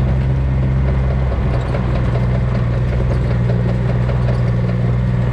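Farm vehicle engine running steadily at low speed, with a slight drop in pitch about a second in.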